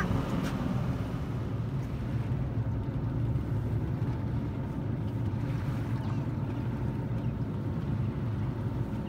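Boat engine running steadily at trolling speed, a constant low hum with water and wind noise over it.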